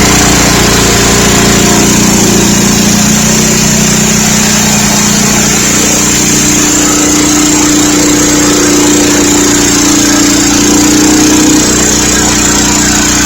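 Gas engine of a Hud-Son portable band sawmill running steadily under load as the band blade cuts a board from an ash log.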